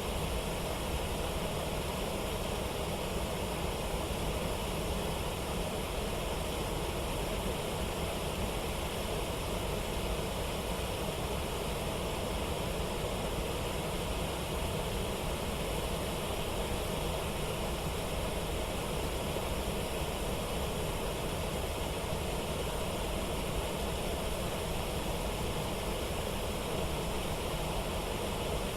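Waterfall rushing in a steady, unbroken wash of water noise, even throughout.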